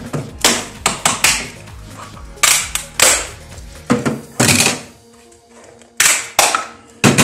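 Gloved hands handling and dismantling a plastic-cased circuit-board unit on a metal-topped workbench: a series of sharp knocks and clatters, about ten, as parts and a green circuit board are pulled out and set down on the bench. Faint music runs underneath.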